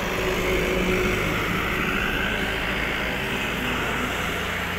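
Steady engine drone, with a rush of noise that swells about a second in and slowly eases off, like a vehicle going by.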